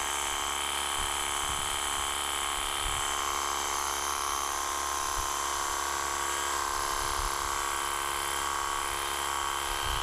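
Ingco 20V cordless pressure washer running steadily, its small battery-powered pump buzzing under the hiss of the water jet on the wide 40-degree nozzle spraying a plastic storage box.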